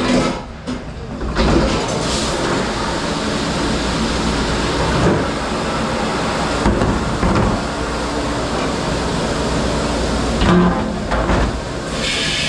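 Steady rushing noise of a commercial kitchen dish station, with pans and dishes knocking a few times and the noise dropping off briefly near the end.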